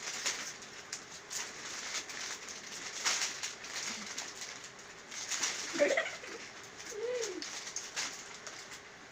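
Crunchy ring-shaped corn snacks being bitten and chewed in an eating race, as a run of short irregular crackles. Two brief coo-like calls come about six and seven seconds in.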